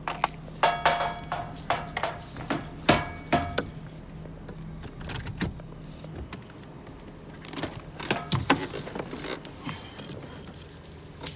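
Metallic clicking and jangling rattles in two spells, as a long iguana-catching pole is handled and pushed out at a car's open window. Under them runs the low steady hum of the idling car, which fades about halfway through.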